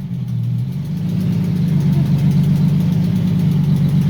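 Nissan VQ35HR 3.5-litre V6 running just after its first-ever start, the note shifting in the first second before it settles into a steady idle.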